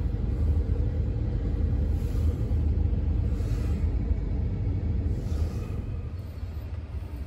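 Steady low rumble of a running vehicle heard from inside the cab, easing slightly near the end.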